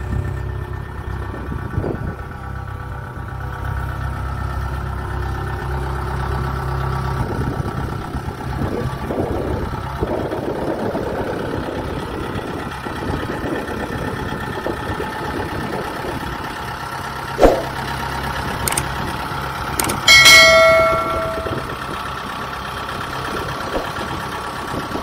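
Kubota DC-68G combine harvester's turbocharged four-cylinder diesel engine (Kubota V2403) idling steadily. A sharp click comes about seventeen seconds in, and a loud metallic clang rings out about twenty seconds in, dying away over about a second.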